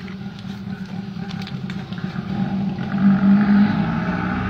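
An engine running steadily with a low hum, growing louder about three seconds in, with a few light clicks in the first two seconds.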